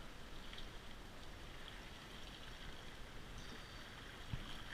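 Faint water lapping against a plastic kayak hull, with small ticks of handling and a single soft knock near the end.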